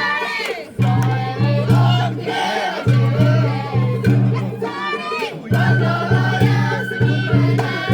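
Sawara-bayashi festival music: taiko drums beating a steady pulse under a high, ornamented melody on a shinobue bamboo flute, with a held note in the second half.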